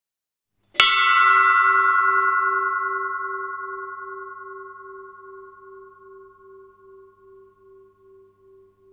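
Brent Spar ship's bell struck once by its rope lanyard about a second in, ringing on and slowly dying away, its low hum wavering in and out about twice a second as it fades.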